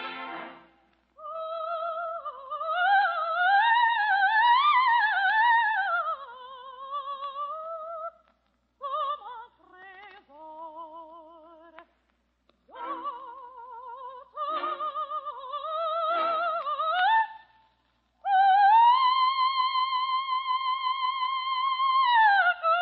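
Operatic soprano singing a largely unaccompanied cadenza: flowing runs and phrases with wide vibrato, broken by short pauses. It ends on a high note held for about four seconds, then slides down. Old radio broadcast recording with a narrow, top-cut sound.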